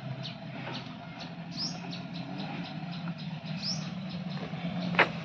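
Birds chirping in short rising calls every second or two over the steady low hum of a small car's engine idling, with one sharp click near the end.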